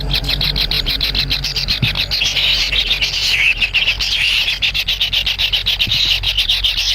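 Kingfisher chicks begging: a continuous rapid, buzzy chatter of about nine pulses a second, with a steady low hum beneath.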